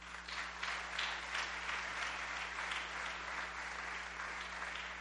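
An audience applauding, many quick claps that swell over the first second and then hold, with a faint steady electrical hum underneath.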